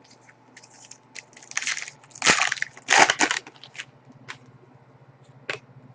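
Trading cards and foil card-pack wrappers being handled: a few crinkling, rustling bursts in the middle, with scattered light clicks of cards being flicked through.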